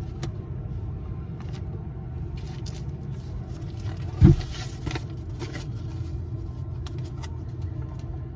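Low, steady rumble of an idling vehicle engine, with one short thump about four seconds in.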